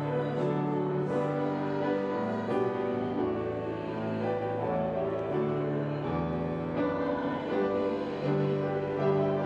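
A hymn played on a grand piano, with a small congregation singing along in slow, long held notes.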